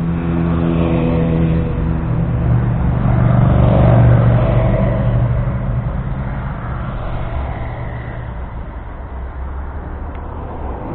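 A motor vehicle drives past with its engine running, growing louder to a peak about four seconds in and then fading away.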